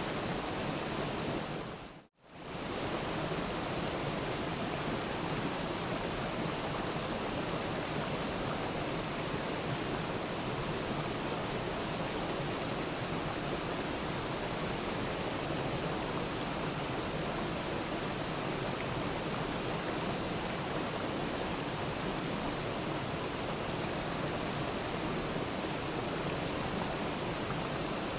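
Waterfall: a steady rush of falling water. About two seconds in it fades out almost to silence for a moment and comes straight back in.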